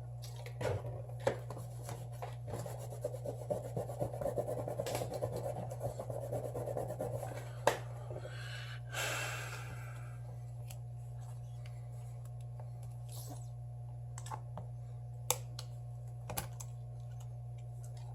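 Small tool clicking and scraping against a smartphone's plastic and metal parts during disassembly. There are many quick light ticks for the first several seconds, a brief scratchy rush near the middle, then only a few scattered clicks, all over a steady low electrical hum.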